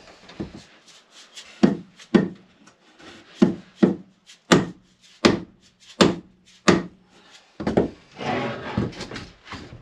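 Wooden blows at uneven intervals, about eight of them, as a timber knee or beam is knocked into place overhead in a wooden boat's hull. A scraping rub of wood on wood follows near the end.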